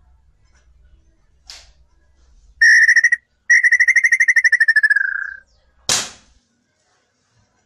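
A loud, rapidly pulsing whistle in two stretches with a short break between them, sagging in pitch at the end. About a second later comes the single sharp crack of a gas-ram air rifle shot.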